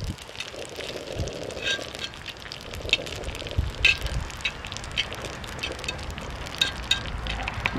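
A utensil clicking and tapping irregularly against a cast-iron pot-lid griddle as spaghetti is lifted and spread out, over faint sizzling from the still-hot pan.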